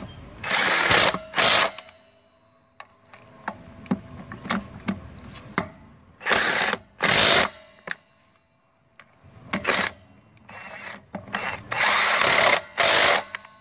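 Avid Power 20V MAX cordless impact wrench spinning and hammering lug nuts on a car's steel wheel. It runs in about eight short trigger bursts of under a second each, with brief pauses as it moves from nut to nut.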